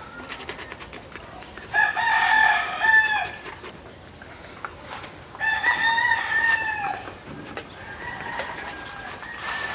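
Rooster crowing twice, each crow about a second and a half long and ending in a falling tail, with a fainter drawn-out call near the end.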